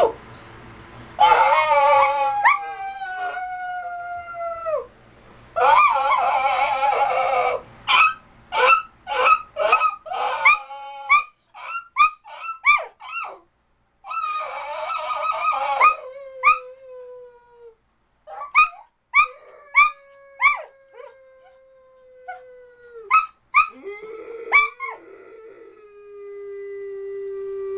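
A dog howling: several long drawn-out howls that fall in pitch at the end, broken by runs of short, sharp yipping howls, and a low, held, moaning howl near the end.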